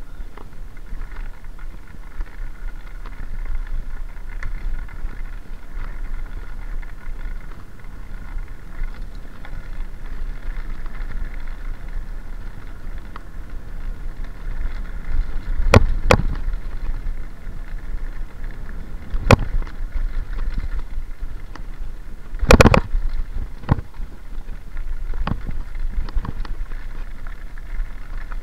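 Mountain bike rolling down a loose gravel track: a steady rumble of tyres on stones and wind on the microphone, broken by sharp knocks and rattles as the bike and its handlebar-mounted camera jolt over bumps, the loudest about halfway through and a double knock a few seconds later.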